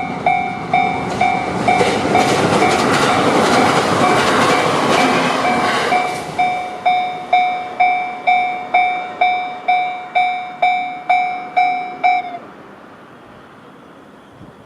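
A Japanese level-crossing warning bell, the JR standard electronic tone, dings about twice a second. From about two to six seconds in, an E129-series electric train rushes loudly over the crossing on top of the bell. The bell stops about twelve seconds in.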